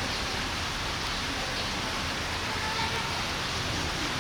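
A steady wash of background noise with a faint murmur of voices in it: the hubbub of a crowd.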